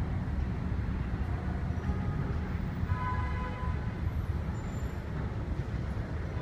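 Low, steady rumble of an R62A subway train approaching through the tunnel before it reaches the station, with a faint brief high tone about three seconds in.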